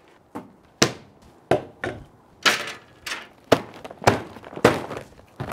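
A quick series of about ten sharp thunks, roughly one every half second: fire-starting supplies (wood chunks, paper, bottles, charcoal bags, a metal chimney starter) being set down one after another on a wooden tabletop.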